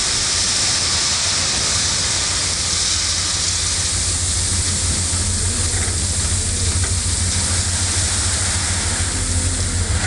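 A heavy vehicle's engine running steadily as a low hum, under a loud, even hiss.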